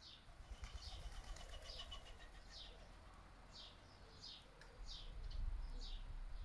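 A songbird repeating a short falling call, a little more than once a second, with a thinner high trill in the first two seconds. Wind gusts rumble on the microphone underneath, loudest around five seconds in.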